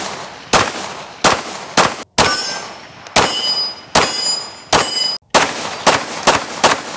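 Glock P80 9mm pistol being fired: about a dozen shots in quick strings, each with an echo trailing off. A high metallic ringing follows several of the shots.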